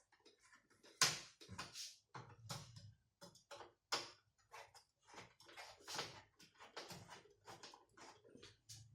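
Irregular light clicks and knocks of a tool and metal parts inside a desktop computer case as the CPU heat sink is being unscrewed and taken off. The sharpest knocks come about a second, four seconds and six seconds in.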